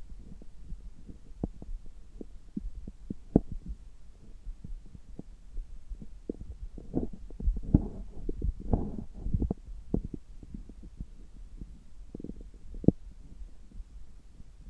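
Stomach and bowel sounds heard through a stethoscope pressed to the belly: irregular low gurgles and sharp little pops over a steady low hum, busiest about halfway through.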